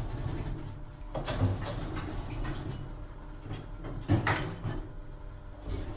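Elevator doors sliding and the car running with a steady low hum, with a sharp clunk about four seconds in.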